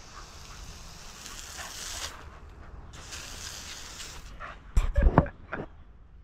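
Garden hose nozzle spraying water onto concrete with a steady hiss, which stops briefly after about two seconds and starts again. A few seconds later comes a cluster of loud, short sounds, the loudest thing here.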